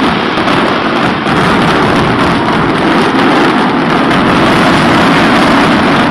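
Aerial fireworks finale barrage: many shells bursting at once in a loud, unbroken rapid crackle of bangs.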